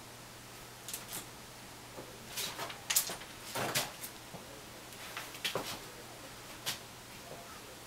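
A bicycle being lifted off a stand and handled: scattered clanks, clicks and rattles of its metal parts, irregular, the loudest about three seconds in and again shortly after.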